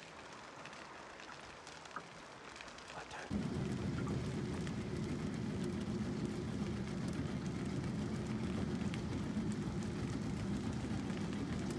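Crackling of a controlled back-burn in bushland, faint at first. About three seconds in, a steady low rumble starts suddenly and continues under the crackle.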